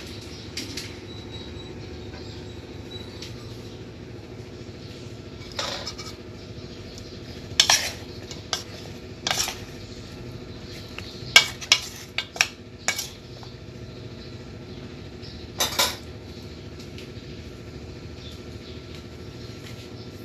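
A metal utensil clinking against a bowl as flour-coated chicken pieces are tossed in it: about ten short clinks, most of them bunched in the middle, over a steady low hum.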